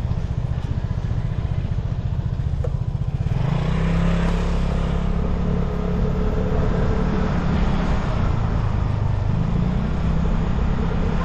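Vespa scooter on the move, its engine running under a heavy low rumble. From about three seconds in it gets louder, with a steady hum and more hiss.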